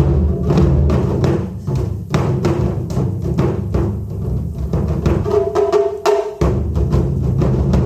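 Japanese taiko drums played by an ensemble in a rapid, dense rhythm of deep booming strikes mixed with sharper hits. The deep drums drop out briefly about six seconds in and then come back.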